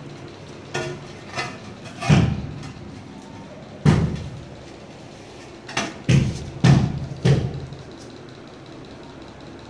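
A series of hard knocks and thuds, about eight in all, from objects being shifted and handled. The loudest come about two and four seconds in, and a quick run of four falls in the second half.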